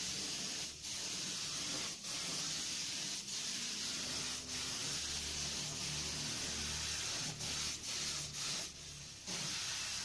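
Compressed-air spray gun spraying clear coat onto a car bumper: a steady hiss with short breaks between passes, about one every second or so, and a longer break near the end.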